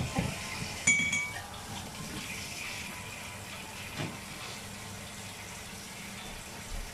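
A sharp clink of an eating utensil against a plate about a second in, ringing briefly, then a softer knock later. Under it is a steady hiss, like running water or a fan.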